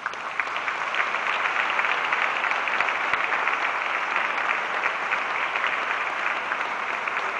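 Large audience applauding: the clapping swells in over the first second, then holds steady.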